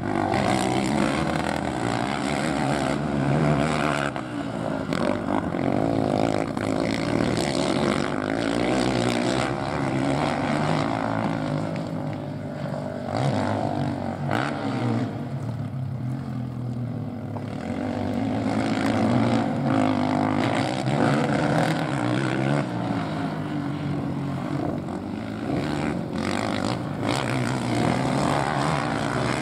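Motocross quad (ATV) engines, a KTM among them, revving up and dropping back over and over as the quads ride a dirt track, with no break in the engine noise.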